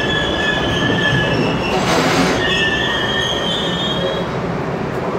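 R32 subway cars rolling along the platform, their steel wheels squealing in high steady tones over the rumble of the running train. A brief hiss cuts in about two seconds in.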